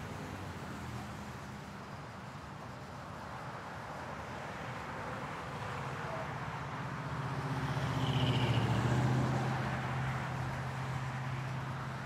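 Street traffic noise with a car passing: a steady hum and engine drone that swells to a peak about two-thirds of the way through, then fades.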